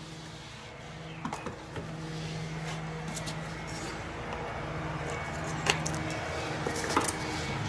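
A few light clicks and knocks from small wooden parts and tools being handled, over a steady low hum.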